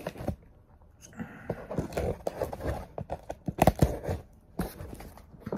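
A plastic-wrapped cardboard shipping box being handled: a scatter of knocks, taps and scrapes on the cardboard with some rustling, the loudest knock about two-thirds of the way through.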